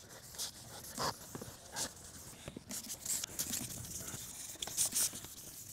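Hand wet-sanding of a plastic headlight lens with 1500-grit sandpaper on a sanding block: faint, irregular rubbing and scraping strokes as the oxidised, hazy surface layer is cut back. A few short sprays of water from a trigger spray bottle come between the strokes.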